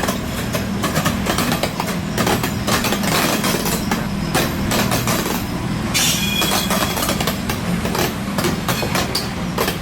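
Train rolling along the track, its wheels clicking and clattering over rail joints over a steady low hum. A brief high-pitched wheel squeal comes about six seconds in.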